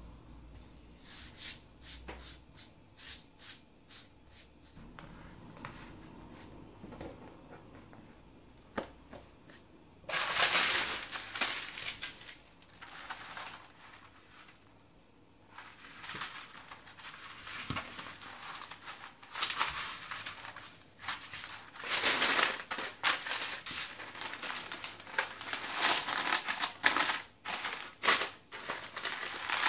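Baking parchment rustling and crinkling as it is folded around a block of laminated croissant dough, in several loud spells starting about a third of the way in. Before that, only faint light taps of hands patting the dough.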